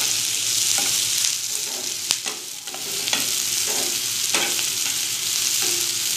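Sliced onions sizzling as they fry in oil in a pan, with a spatula stirring them and scraping against the pan several times.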